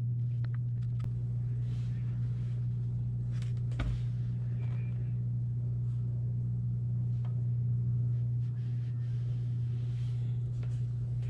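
A steady low hum runs throughout, with quiet knocks and rubs of an iron being pushed and set down on fabric over a pressing mat, and one soft thump about four seconds in.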